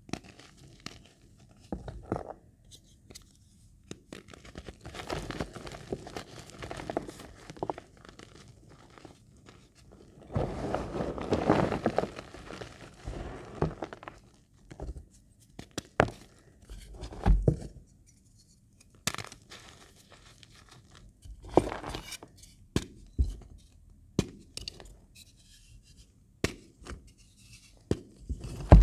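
Reformed magnesia gym chalk crushed in the palms: dry, gritty crunching and crumbling of chalk pieces and powder, broken by irregular sharp cracks as chunks snap. There are a few longer spells of steady crumbling, the longest about ten seconds in.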